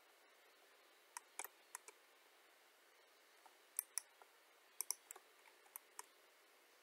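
Computer mouse buttons clicking faintly, about ten scattered clicks, some in quick pairs, over a low steady hiss.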